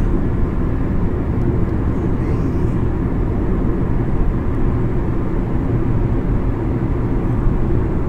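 Steady engine and road noise heard inside the cabin of a 2015 Kia Rio hatchback cruising on a highway, its engine freshly overhauled. It is a low, even rumble with no knocks or changes.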